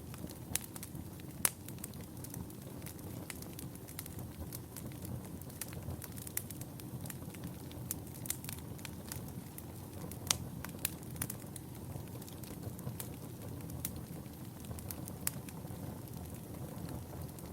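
Wood fire burning in a fireplace: a steady low hiss and rumble of the flames with frequent sharp, irregular crackles and pops.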